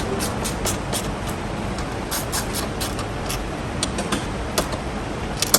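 Steady background noise with a run of short, sharp clicks and taps, about four a second in the middle stretch, from hand-tool work on a car's front end.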